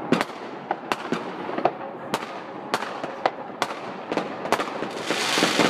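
Fireworks going off: a rapid, irregular series of sharp bangs, with a denser hiss building near the end.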